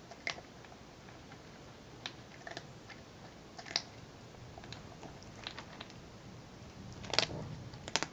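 Calico cat crunching dry kibble from a plastic bowl: irregular, sharp crunches. A louder burst of clatter about seven seconds in.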